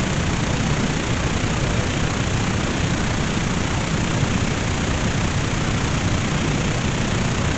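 Steady radio static: a receiver hissing and rushing with no signal, an even wash of noise with no tones or voices.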